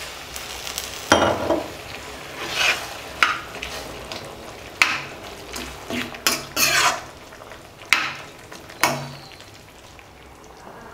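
Steel ladle stirring and scraping a thick cauliflower-and-peas curry around a metal kadai in irregular strokes, now and then knocking against the pan, over a faint sizzle from the pan. The strokes thin out over the last couple of seconds.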